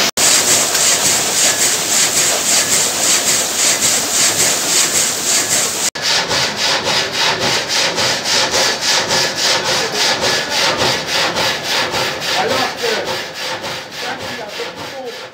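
Vertical frame saw of an old sawmill running, its blade rasping through a log in a steady rhythm of several strokes a second; it fades out near the end.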